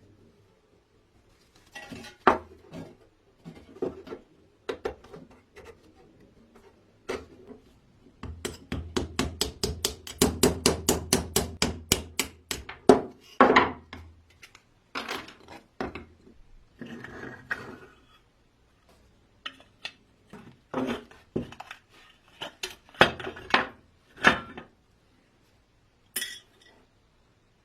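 Metal parts of a vintage coffee grinder clinking and knocking as they are handled. About eight seconds in comes a run of quick, even strokes, about five a second, lasting some four seconds.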